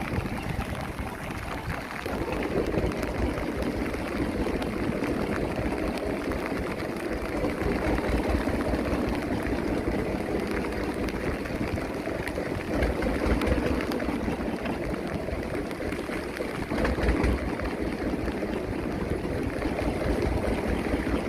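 Steady rushing, gurgling water noise aboard a small fishing boat at sea, with a low rumble underneath.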